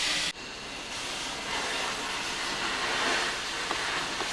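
Cutting torch hissing steadily as it cuts through old steam boiler pipe. A louder, higher hiss breaks off abruptly just after the start, and a steadier hiss carries on after it.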